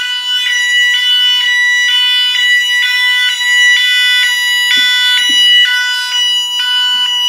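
SpectrAlert fire alarm sounding its tone 2: a loud electronic alarm tone that alternates between two pitches about every half second.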